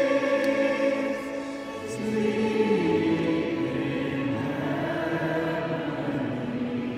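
Choir singing a slow hymn in long held notes, the pitch moving to new notes about a second in and again near the middle.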